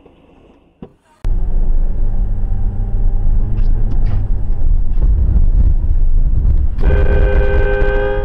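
Loud low rumble of a car driving, picked up by a dashcam inside the car, starting suddenly about a second in, with a few knocks. About seven seconds in a car horn sounds, one steady honk lasting about a second and a half.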